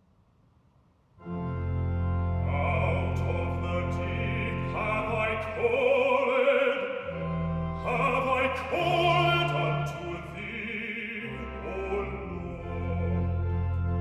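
Organ playing a slow introduction of sustained chords over a deep held bass note, entering suddenly about a second in, with a wavering melody line above.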